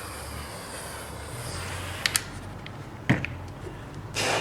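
A steady hiss that fades out about a second and a half in, then a few sharp clicks and knocks of handling, the loudest about three seconds in, and a short rustling burst near the end.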